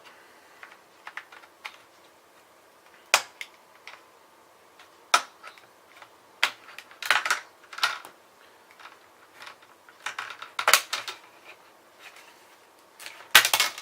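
Plastic retaining clips of a Lenovo Y40 laptop's screen bezel snapping loose one after another as a card pries the bezel up, a series of sharp plastic clicks at irregular intervals with light scraping between them, several close together near the end.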